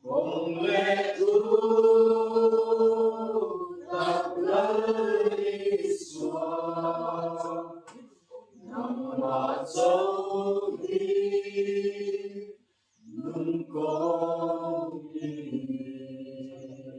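A group of voices singing together without instruments, in long held phrases broken by short pauses about eight and twelve and a half seconds in.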